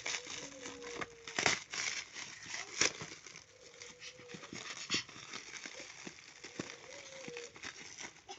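Plastic or paper parcel packaging being handled, crinkled and picked at to open it, with scattered sharp crackles and snaps. A faint wavering tone comes and goes underneath.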